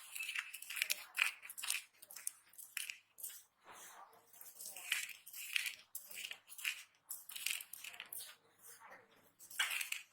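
Dry bar soap crunching and crumbling as it is crushed, in a series of short, irregular strokes about one or two a second.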